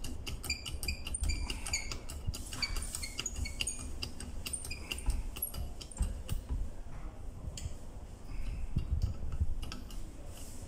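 Hand-operated pressure test pump being worked to run a pressure gauge up toward full scale. Repeated clicks and knocks, with short high squeaks during the first few seconds and fewer clicks later.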